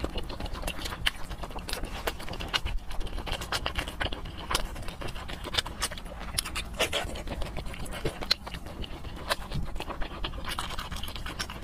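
Eating sounds of soft braised fatty pork: irregular wet, sticky clicks and smacks of chewing and of fingers pulling the gelatinous meat apart.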